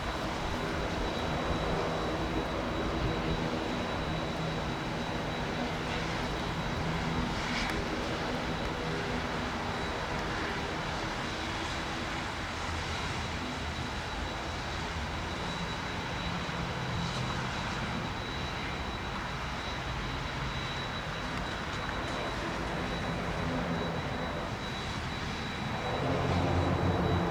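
ATR 72 turboprop engines running, a low propeller drone with a thin steady high whine above it, growing louder near the end.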